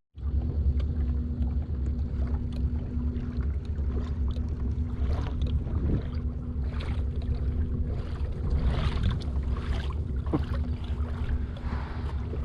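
Kayak under way on open water: low wind rumble on the microphone, a steady hum, and water splashing and swishing against the hull every second or two.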